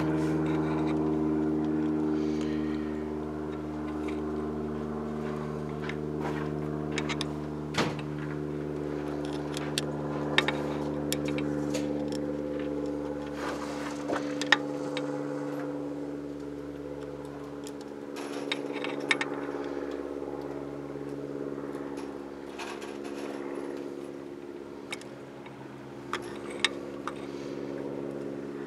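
A steady engine-like drone with several even overtones runs throughout, slowly getting quieter. Over it come scattered sharp metallic clicks and taps as a screwdriver works in the jets of a two-barrel carburettor body.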